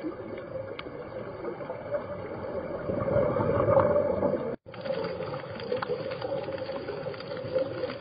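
Muffled underwater ambience picked up by a diving camera: a steady hum with a wash of water noise that swells to a louder rush about three seconds in, drops out for an instant just past halfway, then carries on.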